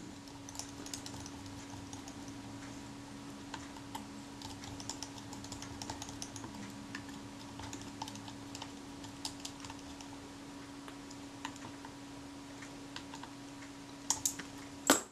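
Faint, irregular small metallic clicks of a thin pin tool working the two-hole cap nut that holds a Retina IIC camera's film advance lever, with a couple of louder clicks near the end. A steady low hum runs underneath.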